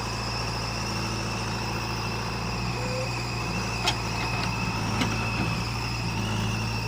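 Diesel engine of a tractor or backhoe loader running steadily at idle, with two sharp metallic clicks about four and five seconds in.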